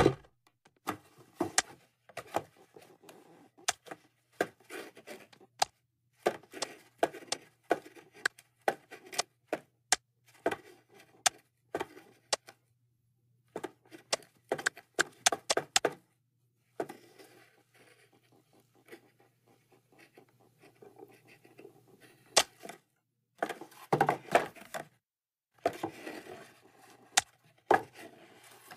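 Cartoon sound effects: scattered sharp clicks, knocks and scrapes in irregular clusters, with a quieter stretch in the middle and a single louder knock about two-thirds of the way through, over a faint low hum.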